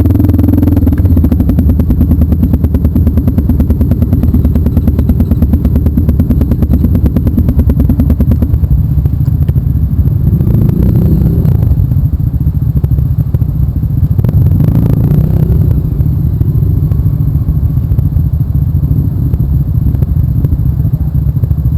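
Trail motorcycle engine running close by, a steady rapid firing pulse, its note shifting a few times midway.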